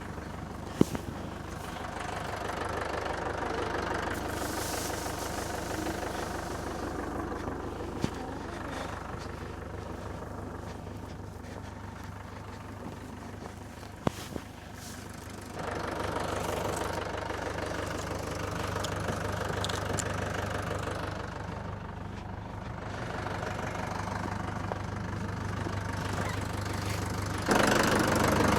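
Vehicle engine running steadily with a low hum, growing louder near the end, with a few short clicks along the way.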